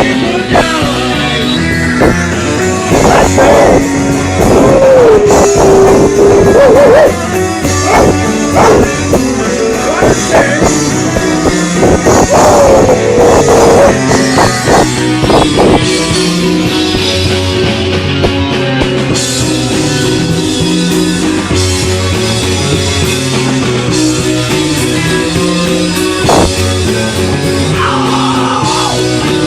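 Rock music with electric guitar and a drum kit, with some singing.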